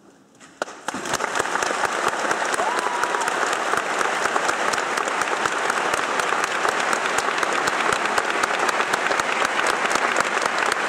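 Large audience applauding, starting about a second in and holding steady.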